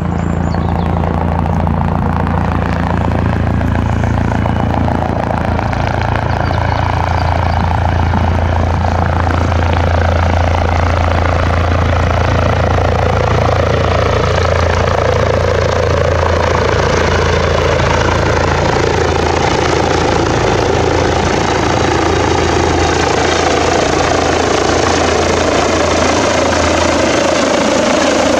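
Rescue helicopter approaching to land, its rotor and turbine noise growing gradually louder as it comes overhead, over a steady low rotor hum.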